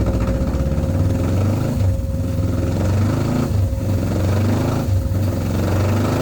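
Motorcycle engine running loudly and steadily, with brief dips in level a few times.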